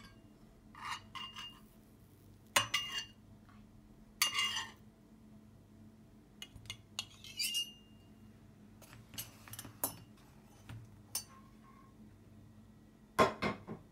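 Kitchenware clinking and knocking: a utensil against a plate and pan as boiled mandarin halves are lifted out onto the plate. Separate clinks and short clatters come every second or two, with a louder clatter near the end.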